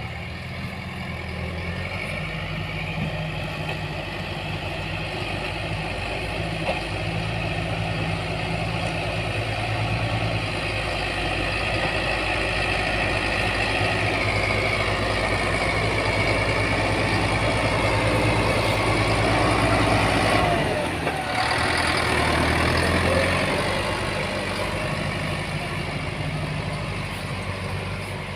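Heavy diesel engine of road-work machinery running steadily. It grows louder toward about two-thirds of the way through, drops out briefly, then picks up again and eases off.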